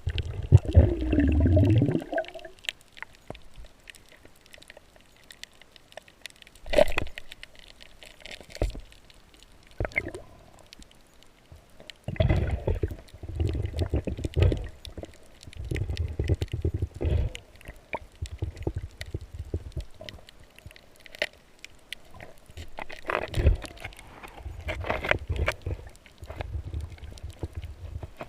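Water sloshing and gurgling in uneven surges, with a few sharp knocks and a falling pitched sound near the start.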